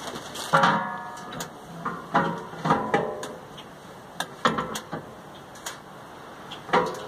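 Irregular metal clanks and knocks, several ringing briefly, as steel parts of a homemade sand muller's roller assembly are handled and fitted; the loudest and most ringing come about half a second in and again near the end.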